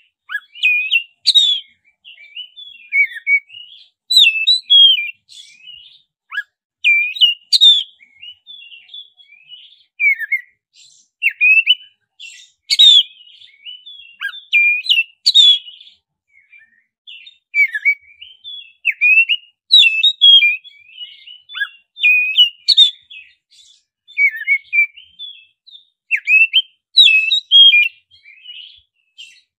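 Black-breasted Oriental magpie-robin (kacer) singing: quick, varied whistled notes, chirps and sweeping glides, delivered in loud bursts of a second or two with brief pauses between. It is a lure song ('pancingan') meant to set other magpie-robins singing.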